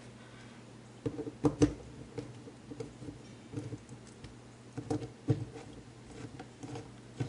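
Scattered small clicks and taps of a screwdriver and small screws on a motorcycle carburetor's top cap as the screws are started by hand, with sharper clicks about a second and a half in and again around five seconds.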